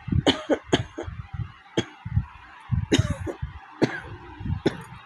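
A woman coughing repeatedly, about six short harsh coughs at irregular intervals: a real cough from a heavy cold.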